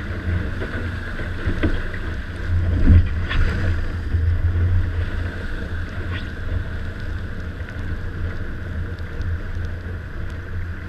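Wind buffeting a deck-mounted camera's microphone on a sailing dinghy under way, with water rushing and splashing along the hull; a steady rumble that peaks about three seconds in.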